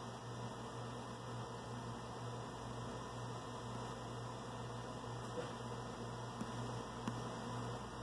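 Steady low electrical hum and hiss, with a few faint taps of a stylus on a touchscreen about five to seven seconds in.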